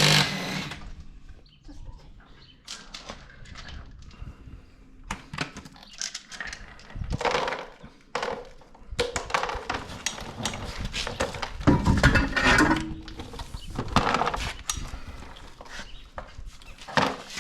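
Irregular clanks, clicks and scrapes of hand tools and metal brake parts being handled during a rear brake pad change.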